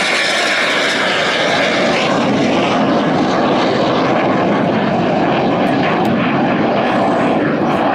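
Lockheed T-33 jet trainer flying a low pass, its engine giving a loud, steady jet noise; the highest hiss thins out after about three seconds.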